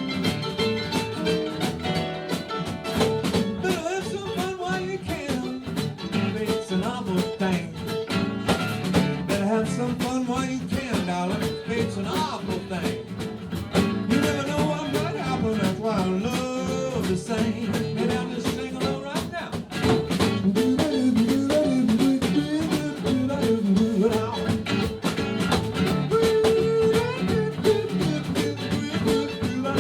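Live blues band playing an instrumental passage, with guitar over a drum kit keeping a steady beat.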